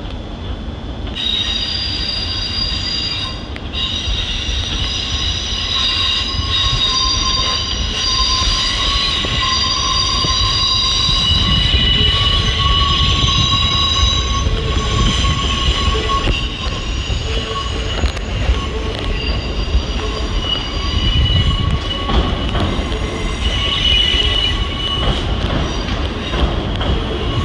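Electric multiple unit's steel wheels squealing against the rails as the train moves through the station. It is a cluster of high, steady screeching tones that starts about a second in and swells and fades in places, over a low rumble of the train.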